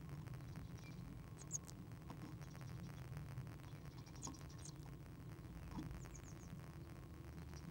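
A tit scratching and rustling in the moss nest material of a wooden nest box, with a few short high peeps, four in quick succession near the end, over a low steady hum.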